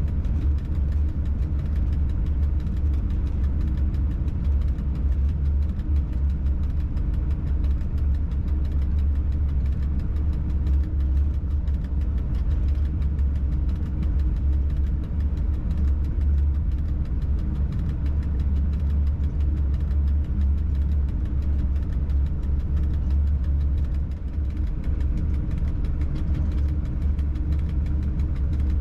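Steady low rumble and hum of a freight locomotive heard from inside the driver's cab, unchanging throughout.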